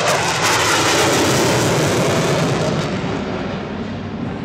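Royal Malaysian Air Force MiG-29's twin RD-33 turbofan engines, heard as loud jet noise from the fighter in display flight; the noise eases off after about three seconds.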